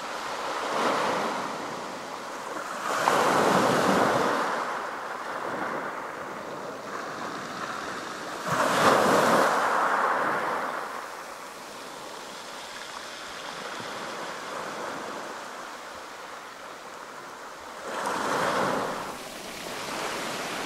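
Small waves breaking and washing up over a pebble beach, coming in separate surges every several seconds. The loudest surges are about three and nine seconds in, with another near the end.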